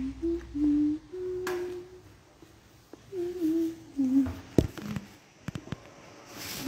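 A person humming a tune in short held notes that step up and down in pitch, with a few sharp clicks or knocks about four and a half to five and a half seconds in.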